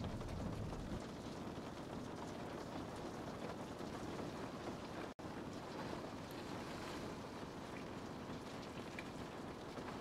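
Steady rain falling: an even hiss of rain with a low rumble underneath. The sound cuts out for a split second about five seconds in.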